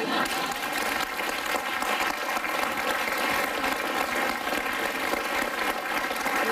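Studio audience applauding, a steady dense clatter of many hands clapping.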